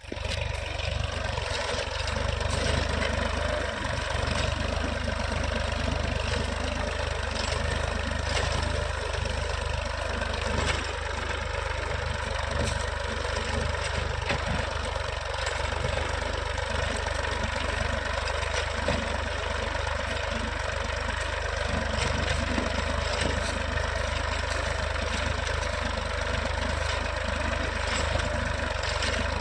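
Tractor engine running steadily at an even pace, with scattered faint clicks and knocks over it.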